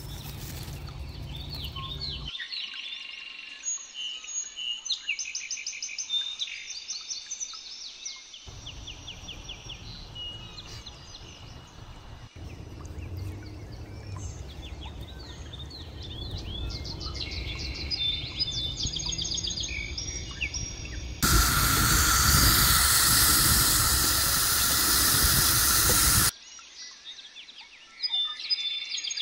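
Several small birds chirping and trilling in quick repeated phrases. Near the end comes a loud, steady rushing noise that starts and stops suddenly and lasts about five seconds.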